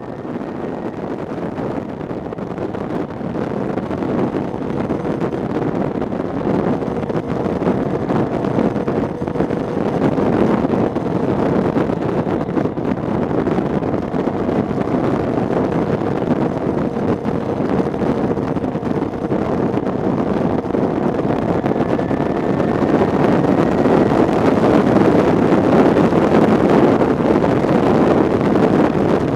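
Wind rushing over the microphone of a motorcycle cruising at highway speed, with a steady engine tone underneath. It fades in at the start and grows slightly louder toward the end.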